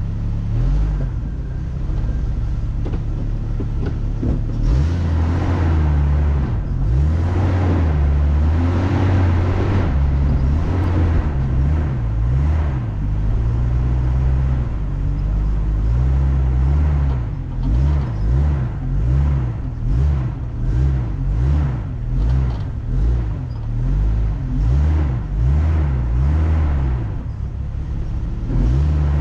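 Off-road vehicle's engine working up a rough trail, its revs rising and falling over and over, surging about once a second in the second half.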